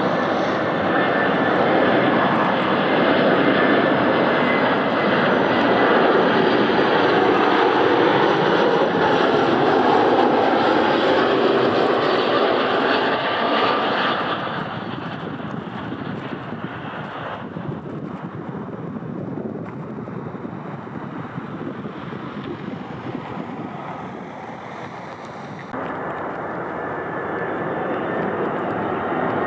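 Airliner engines running loud with a steady rush, which drops off abruptly about halfway through and steps back up near the end.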